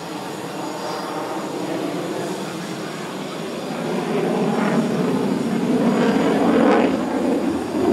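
Jet noise from a Sukhoi Su-30MKM's twin AL-31FP turbofans as the fighter manoeuvres overhead. It builds about halfway through and is loudest near the end.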